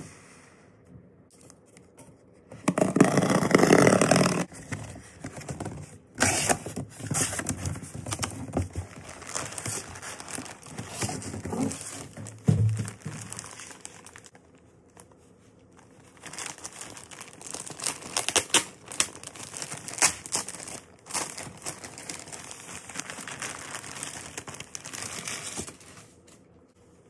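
Unboxing handling sounds. Packing tape is ripped off a cardboard box in one loud tear about three seconds in, then crinkling plastic packaging is handled in bouts, with a short pause midway.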